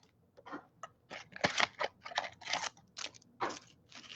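Baseball trading cards and their packaging being handled: a string of short, irregular rustles and slides as cards are shuffled through and flipped.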